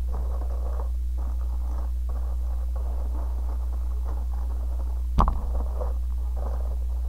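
Rustling and scraping handling noise close to the microphone, over a steady low electrical hum, with one sharp knock about five seconds in.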